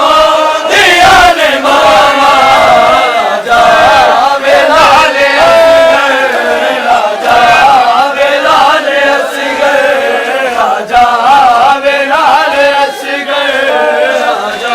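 A crowd of voices chanting a nauha, a Shia Muharram lament, together in long sung phrases whose pitch rises and falls.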